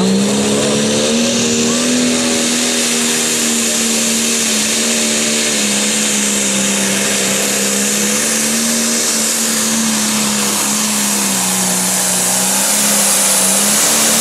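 Pro Stock pulling tractor's turbocharged diesel engine, in a John Deere 4430 body, running flat out under load as it drags the sled. The engine note rises at the launch and then holds loud and steady, wavering slightly. A high turbo whine climbs over the first couple of seconds.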